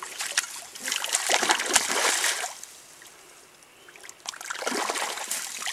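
A large hooked trout splashing and thrashing in shallow water at the bank as it is landed by hand. There are two bursts of splashing, the first about a second in and the second near the end.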